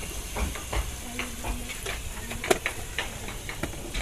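Metal ladle stirring vegetables in a metal saucepan, scraping and clicking against the pot, over a steady hiss from the cooking. One sharp knock stands out about two and a half seconds in.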